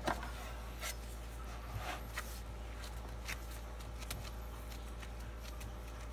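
Soft handling noises as nitrile-gloved hands move and press a raw bone-in rib roast on a wooden cutting board, with about half a dozen light taps and rubs, over a steady low hum.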